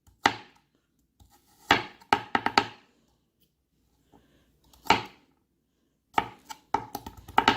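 Santoku kitchen knife chopping onion on a cutting board, the blade striking the board in sharp chops: a few single strokes, then a quick run of chops near the end.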